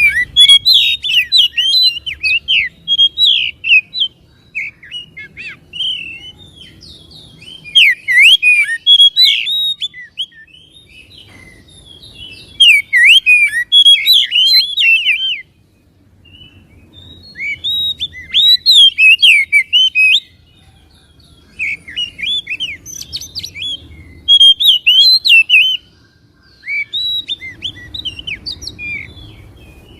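Oriental magpie-robin (kacer) singing: loud phrases of rapid, sharply rising and falling whistled notes, each phrase lasting one to three seconds with short pauses between, repeated about ten times.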